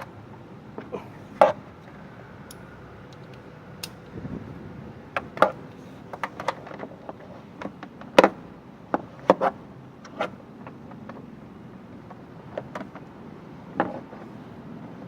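Scattered sharp clicks and knocks of hand tools and parts being handled during timing belt work on a Toyota Hilux Vigo engine, about fifteen irregular taps with the loudest about eight seconds in.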